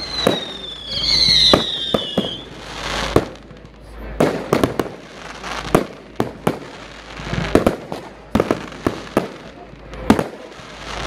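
Fireworks display: a steady string of sharp bangs and pops from bursting aerial shells, roughly two a second. Over the first two seconds a high whistle falls slightly in pitch.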